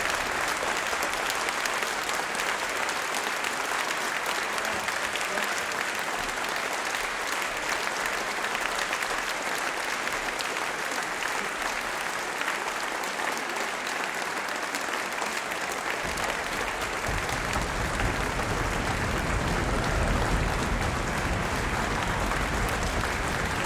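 Concert hall audience applauding, a steady, sustained clapping; a low rumble joins in about two-thirds of the way through.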